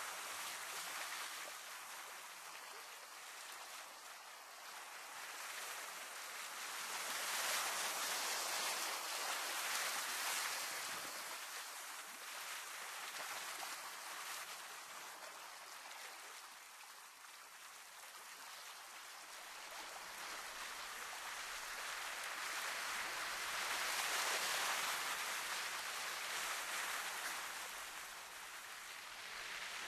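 Sea waves washing against a rocky shore, a hissing wash that slowly swells and fades in uneven surges.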